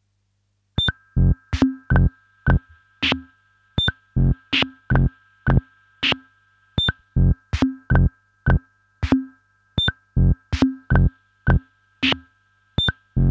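Eurorack modular synthesizer beat starting about a second in after silence: sharp synthesized kick and click hits at about two to three a second over a steady high drone.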